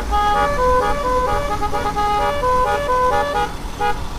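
Basuri telolet musical horn playing a fast tune of short and longer held notes, over a low engine rumble.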